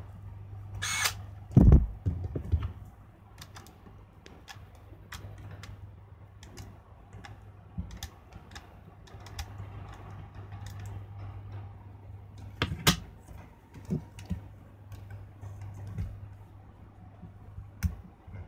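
Handling noise from a Canon EOS-1 film camera body: scattered small clicks and knocks of plastic and metal as its hand grip is fitted and worked at. There are a few louder knocks about two seconds in and again near the middle, over a steady low hum.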